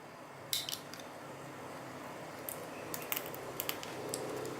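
Scattered small sharp clicks and taps, about eight in all, a couple near the start and a cluster in the second half, from tools and fingers working on a smartphone's internal parts during a teardown.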